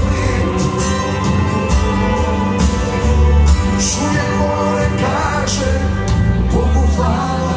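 Live band playing a song through a concert PA, heard from the audience, with a voice singing over it in places.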